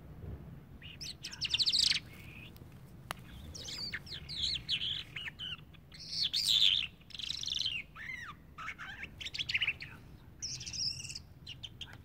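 A small caged songbird singing: a run of short, varied phrases of quick trills and chirps, one after another with brief gaps.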